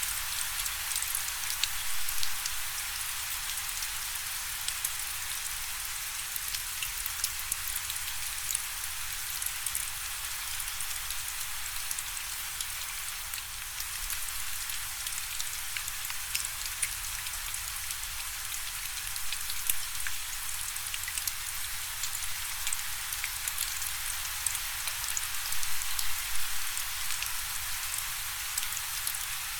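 Steady rain falling: an even hiss with many individual drops ticking sharply close by.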